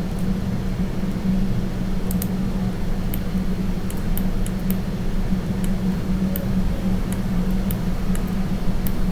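Steady low electrical hum and hiss from the recording setup, with faint, irregular clicks of a computer mouse and keyboard scattered through it.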